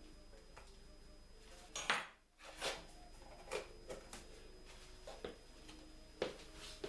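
Kitchenware being handled on a counter: scattered clinks and knocks of plastic containers and cutlery, with a louder clatter about two seconds in.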